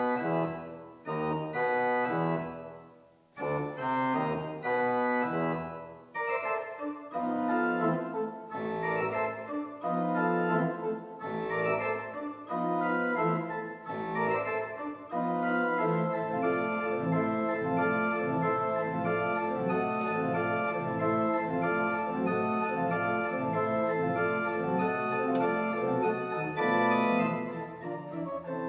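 Pipe organ playing a fast piece: short chords broken by brief gaps for the first few seconds, then an unbroken stream of rapid notes over low bass notes.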